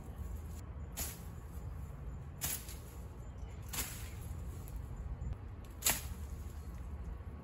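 Machete swung into overgrown vines and brush: four sharp swishing chops, a second or two apart.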